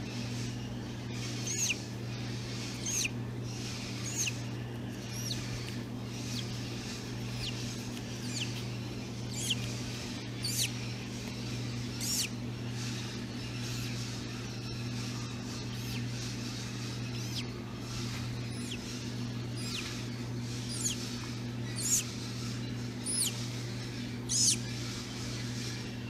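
Hatching parrot chick peeping: short, high-pitched calls that slide downward, repeated every second or two and loudest near the end. A steady low hum runs underneath.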